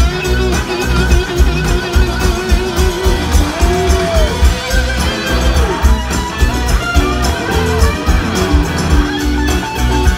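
Live rock band playing a blues-rock song: a steady drum beat, bass and electric guitars, with a lead guitar line that bends up and down in pitch.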